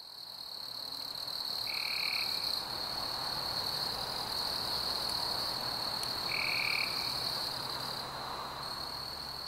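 Nature ambience that fades in at the start: a steady high insect drone over a soft hiss, with two short, even-pitched calls about four and a half seconds apart.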